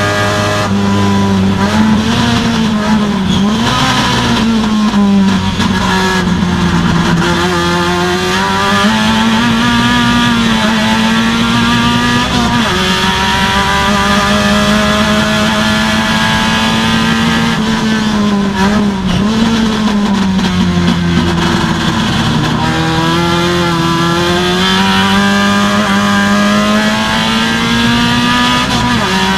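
A race car's engine heard from inside the cockpit at racing pace. Its pitch climbs under throttle and drops sharply at gear changes and braking, over and over as the car laps the circuit.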